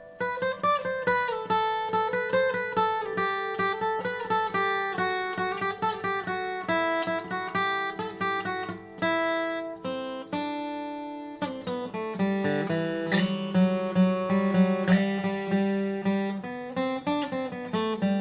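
Custom shop Martin Style 28 acoustic guitar, with a bearclaw Sitka spruce top and Madagascar rosewood back and sides, played solo: a quick run of single plucked notes, then fuller ringing chords over a strong bass note from about twelve seconds in.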